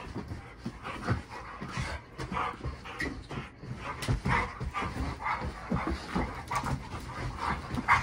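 Two Dobermans play-fighting: a fast, irregular string of short dog vocal sounds and panting, with low thuds of the dogs scuffling on a mattress.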